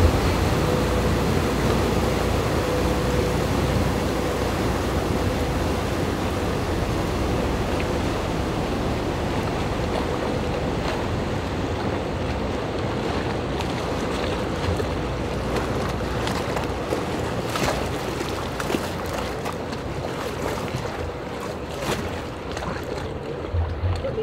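Lake passenger ship pulling away from the pier: a steady engine hum and the rush of its churning wake against the shore, both slowly fading as it moves off.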